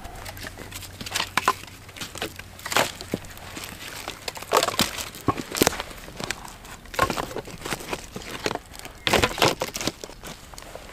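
Footsteps crunching over dry leaf litter and twigs, a cluster of sharp crackles every second or so.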